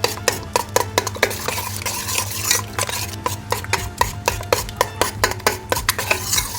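A spoon stirring gram flour into yogurt for kadhi batter, with quick, irregular clinks and scrapes against the vessel as the flour is worked in to dissolve without lumps. A steady low hum runs underneath.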